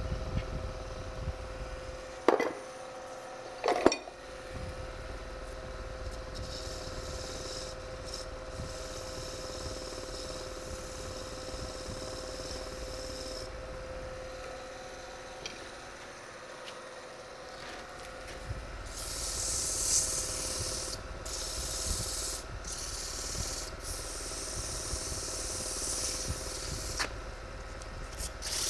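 Wood lathe running with a steady hum while sandpaper is pressed against the spinning ash blank, a hissing rub that comes and goes in strokes and grows stronger over the last ten seconds. Two sharp knocks come a few seconds in.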